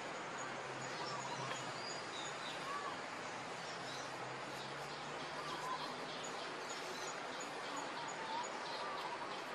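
Outdoor background hiss with scattered short bird chirps and a faint, repeating high-pitched note.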